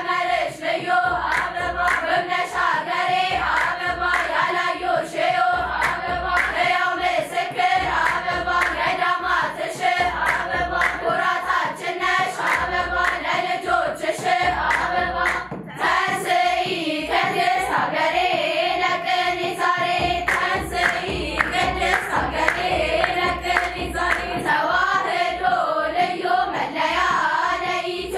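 Girls' choir singing an Ethiopian Orthodox mezmur with rhythmic hand clapping and the low beat of a kebero drum, the singing breaking off briefly about halfway through.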